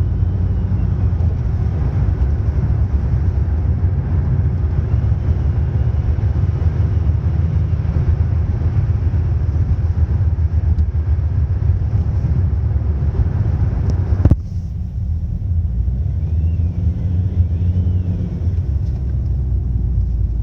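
Ford Mondeo Mk4 2.0 TDCi diesel engine running with a steady low rumble, with a faint whistle that rises and falls in pitch a few times as the throttle is worked. The owner hears this whistle on the throttle through the car's speaker even with the head unit off. About 14 seconds in there is a sharp click, after which the rumble is quieter and duller.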